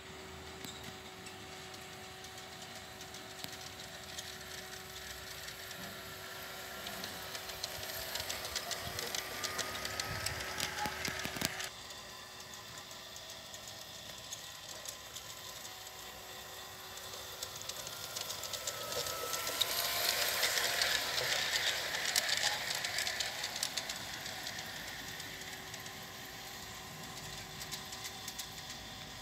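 Piko G-scale garden railway train running past on its track: a small electric motor whine with quick clicking of wheels over the rails. It swells as the train approaches and cuts off suddenly about a third of the way in, then swells again and is loudest past the middle as the train passes close by, fading away near the end.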